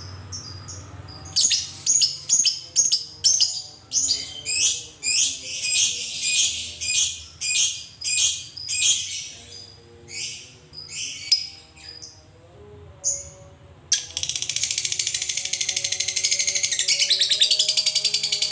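Lovebird giving a run of sharp, shrill chirps about two a second, then, after a short pause, breaking into a long, very fast continuous chatter, the 'ngekek' trill that keepers prize in fighter lovebirds.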